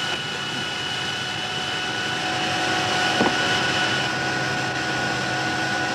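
Jet aircraft engine running steadily on the ground: an even rushing noise with a steady high whine.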